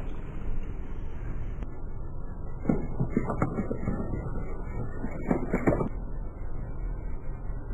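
Plastic bottle crackling and crunching as it is crushed under a car tyre, in two short bursts of sharp cracks, about three seconds in and again around five and a half seconds in, over a steady low rumble.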